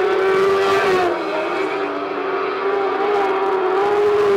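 Racing car engines held at high, fairly steady revs, more than one engine note heard together as the cars circle the track.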